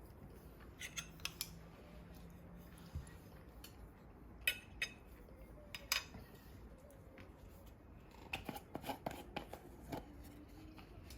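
Small sharp clicks and snips of objects being handled, in loose groups, with a denser run of clicks near the end.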